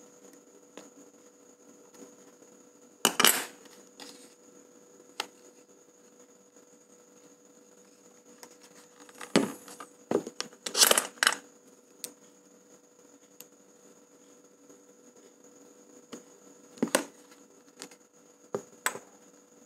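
A Canon EOS 650D DSLR being taken apart by hand to replace its LCD screen: scattered clicks and short clatters of small plastic and metal parts and a precision screwdriver, loudest in a cluster about halfway through. A steady faint electrical hum runs underneath.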